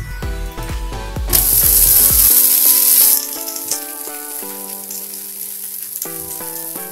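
Foxtail millet dosa being flipped on a hot tawa: a metal spatula scrapes and taps under it, then a loud burst of sizzling lasts about two seconds as the uncooked side hits the pan. After that, faint sizzling continues under background music.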